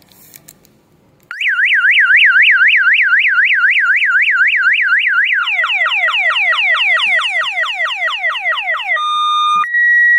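Electronic motorcycle siren horn switching on suddenly about a second in and cycling through its tones: a fast up-and-down warble, then rapid falling chirps about four a second, then an alternating two-tone beep near the end. It is loud.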